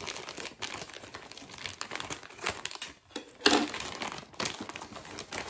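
Plastic poly mailer bag crinkling and rustling as it is cut with scissors and pulled open by hand, with irregular crackles and a louder burst about three and a half seconds in.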